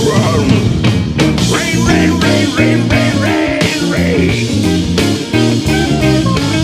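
Rock music with electric guitar playing over bass and drums, without vocals.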